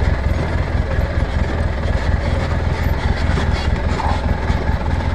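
Side-by-side off-road vehicle's engine running steadily at low speed as it crawls over a rough rocky trail, heard from the seat with a strong low rumble.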